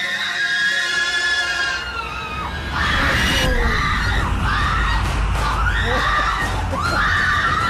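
A person shrieking in fright: a long scream at first, then short screams about once a second.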